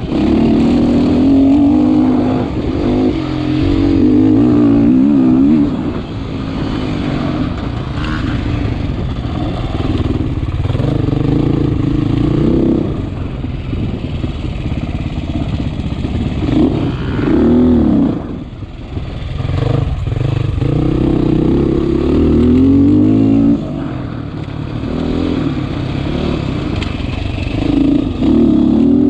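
Sherco SEF 450 single-cylinder four-stroke dirt-bike engine being ridden hard, revving up and easing off again and again as the throttle opens and closes. The throttle is shut briefly about six, eighteen and twenty-three seconds in.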